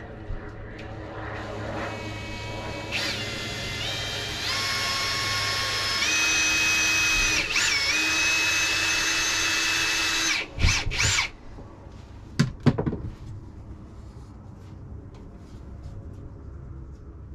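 Cordless drill pre-drilling a pilot hole through a sheet-metal window screen cover. The motor whine climbs in pitch in a few steps over about ten seconds as the trigger is squeezed harder, then stops, followed by a few short bursts.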